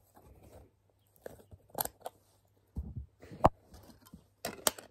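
Plastic Lego baseplates and bricks being handled and set down: scattered sharp clicks and taps, with a low knock about three seconds in.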